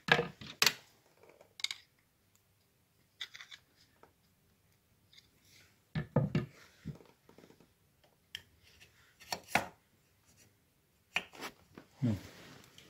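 Scattered clicks and light metallic knocks as a motorcycle-style brake caliper is handled and offered up onto the moped's front fork beside the brake disc, with a few sharper clicks and short gaps of quiet between them.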